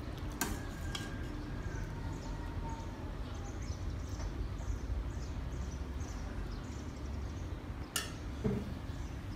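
A metal ladle clinks against a stainless steel soup pot a few times, sharply about half a second in, again a second in, and near the end. Small birds chirp repeatedly in the background over a steady low rumble.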